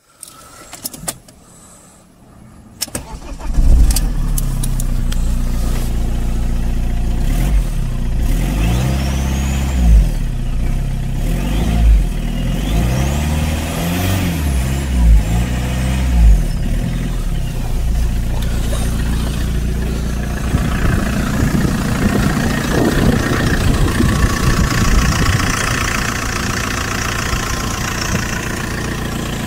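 Fiat Multipla's 1.9 JTD four-cylinder turbodiesel: a few clicks, then the engine cranks and catches about three seconds in and settles to idle. It is revved in several short blips, with the turbo whistling up and down with the revs, and then runs on at idle with a faint turbo whine.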